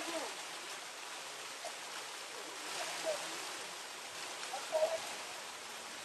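Waterfall pouring and splashing onto rock in a steady rush of falling water, with a few faint, brief voices about three and five seconds in.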